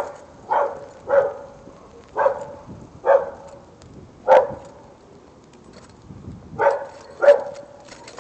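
A dog barking repeatedly, eight single barks: six in an uneven run, a pause of about two seconds, then two more near the end.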